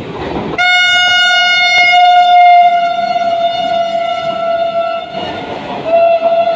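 Horn of a passing express train's locomotive: one long steady blast of about four and a half seconds, a short break, then a second blast near the end, over the rumble of the train running through at speed.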